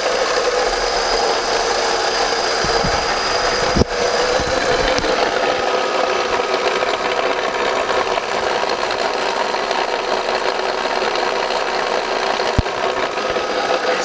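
VW Polo's engine running with a steady mechanical noise from the gearbox, picked up with the microphone held close in the engine bay, and a sharp knock about four seconds in. The mechanic suspects either a failed bearing plate or a worn-out clutch.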